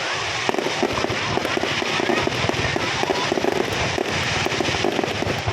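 Fireworks display going off continuously: a dense, unbroken crackle of many small rapid bangs.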